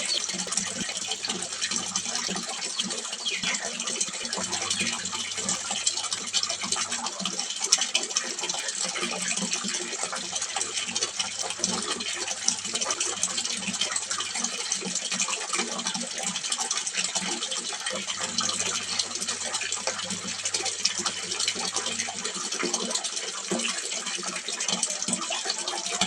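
Water splashing steadily into a small fish pond, a continuous bright splashing and trickling.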